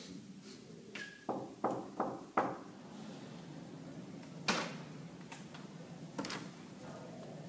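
A few sharp steps on a hard floor about a second in, then a door's latch clicking a few times as the door is opened.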